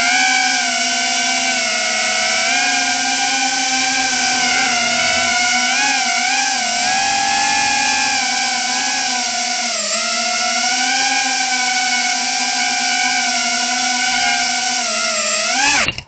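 Emax Tinyhawk 2 micro FPV drone's brushless motors whining close up, the pitch wavering up and down with the throttle, then cutting off abruptly at the end.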